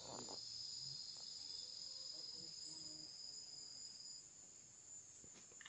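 Insects chirring steadily in two overlapping high-pitched tones; the lower of the two stops about four seconds in while the higher one carries on.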